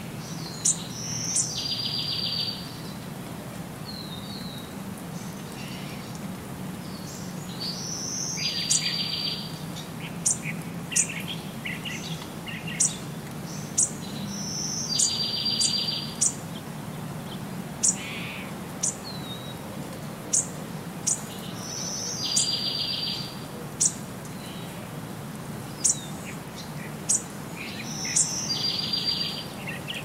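A songbird repeating the same short song about every seven seconds, a brief high whistle followed by a buzzy trill lasting about a second, with frequent sharp high chip notes in between. A steady hiss of light rain runs underneath.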